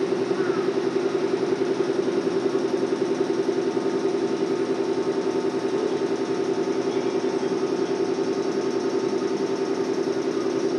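A train standing at the platform with its machinery running: a steady hum with a fast, even throb that holds unchanged.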